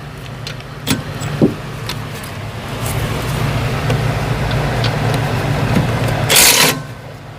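A cordless impact wrench running steadily for several seconds, loosening brake hardware, with a short loud hiss near the end.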